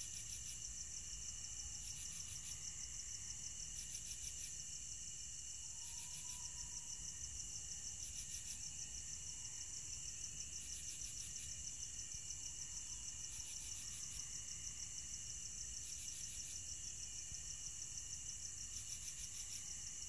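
Crickets chirping at night: a steady, high, finely pulsing trill with a fainter steady tone beneath it. A second, higher chirp comes in short bursts every two to three seconds.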